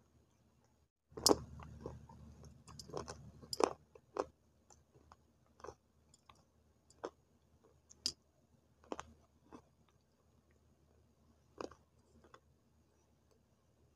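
Close-miked biting and chewing of dry multani mitti (Fuller's earth) clay sticks. A dense run of crisp crunches comes in the first few seconds, then single sharper crunches about once a second.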